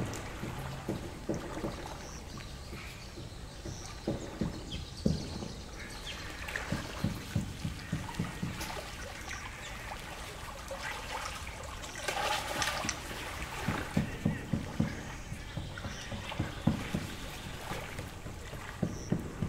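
Small lake waves lapping and slapping at the shore in short, irregular splashes, bunched at a few per second in places, with a broader splash about twelve seconds in. Faint bird chirps come through now and then.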